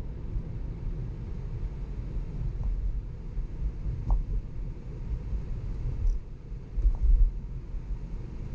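Low road and tyre rumble heard inside the cabin of a moving Tesla electric car, with no engine note. It swells briefly about seven seconds in, and a few faint short tones sound over it.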